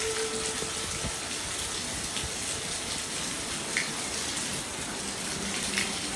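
Steady rain falling, an even hiss with a few louder drops now and then.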